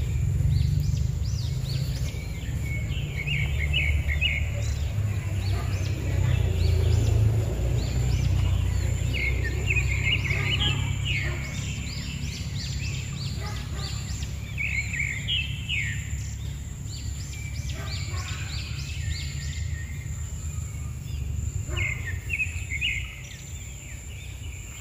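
Birds calling in short bursts of quick chirps, four times, over a steady low rumble.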